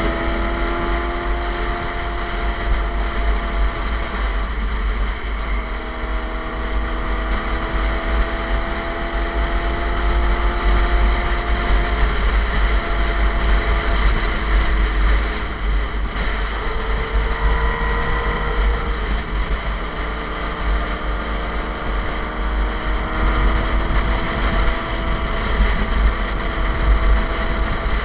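Suzuki GSX-R sport bike's engine through an SC Project aftermarket exhaust, running steadily on the open road with slow, gentle rises and falls in engine pitch. Wind buffets the microphone throughout.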